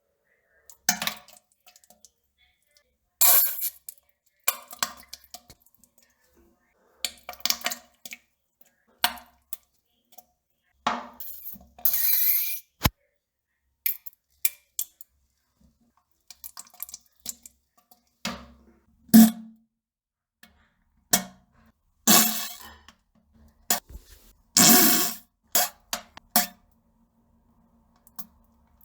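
A person defecating on the toilet: about a dozen irregular bursts of farting and plopping, some with a low buzzing rasp, separated by silent gaps.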